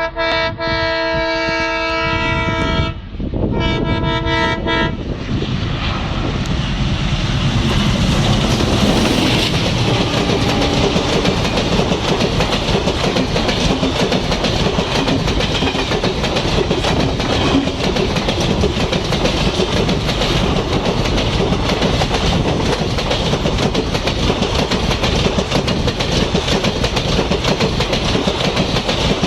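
WDG3A diesel locomotive's horn sounding in a long blast that breaks off about three seconds in, then a second short blast. The express then passes at speed, a loud steady rush of wheels clattering over the rails that carries on to the end.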